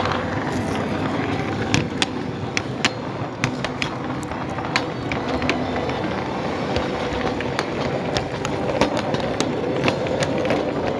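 Large-scale model train running along the track with a steady rumble and hum, its wheels clicking sharply and irregularly over the rail joints and points.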